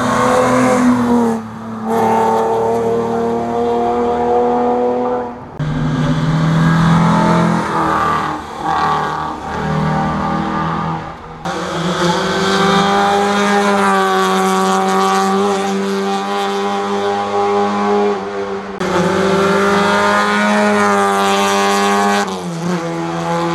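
Rally cars' engines running at high revs, one car after another, with the engine note shifting and changing abruptly every few seconds.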